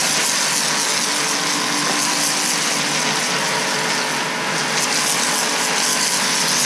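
Ryobi pressure washer running, its high-pressure jet from a handheld spray gun blasting water onto concrete: a steady loud hiss of spray with the machine's hum underneath.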